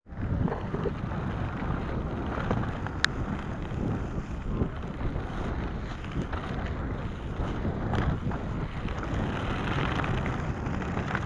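Off-road inline skate on three 125 mm 83A wheels rolling over a dirt road: a steady gritty rumble mixed with wind buffeting the microphone. One sharp click about three seconds in.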